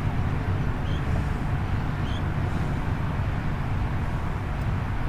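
Steady low outdoor rumble, the kind left by wind on the microphone and distant traffic, with two faint short high chirps about one and two seconds in.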